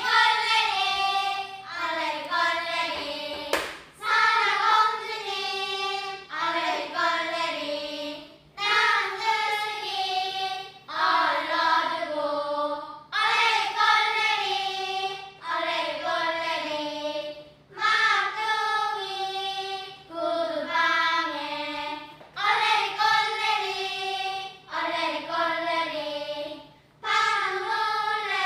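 High voices singing a slow song in held phrases about two seconds long, with short breaks for breath between them.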